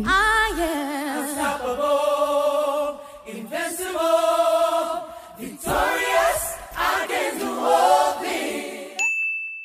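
Intro music: a choir singing in harmony. Near the end the singing stops and a short steady high beep sounds, then cuts off.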